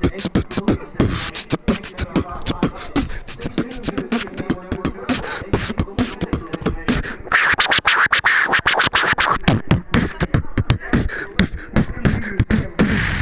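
Freestyle beatboxing: a fast, continuous run of percussive mouth sounds, with a denser, brighter buzzing stretch from about seven to nine and a half seconds in.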